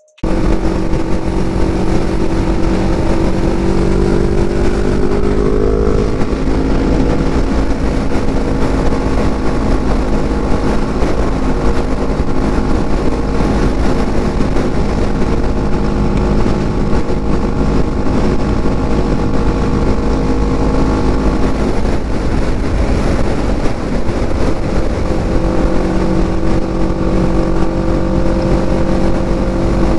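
Motorcycle engine running at highway speed under a steady rush of wind noise. The engine note climbs as the bike accelerates a couple of seconds in, holds steady, then climbs again near the end.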